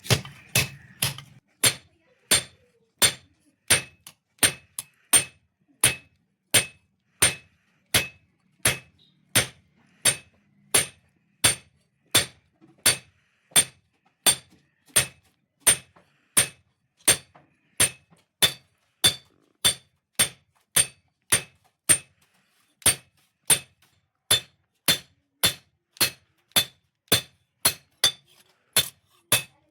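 Blacksmith's hammer striking steel on an anvil, forging a blade: a steady rhythm of about one and a half to two blows a second, each a sharp, ringing clink.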